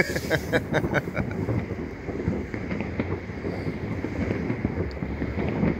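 Many fireworks going off across the town at once, their overlapping bangs merging into a continuous rumbling crackle. A few sharper cracks stand out in the first second.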